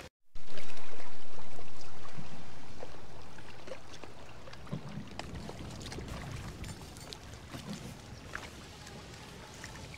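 Open canoe moving across choppy lake water, with water lapping and trickling along the hull and a few light paddle splashes. A loud rush of noise starts sharply just after the start and fades away over about four seconds.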